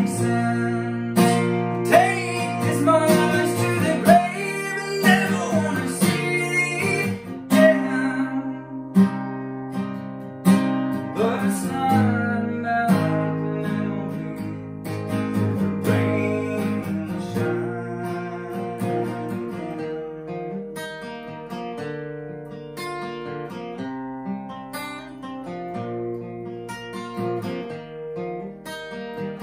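Solo acoustic guitar playing ringing chords, gradually getting quieter toward the end.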